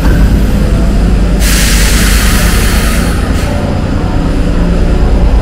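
Stockholm metro train running with a steady, heavy low rumble, and a burst of hiss lasting about a second and a half near the start.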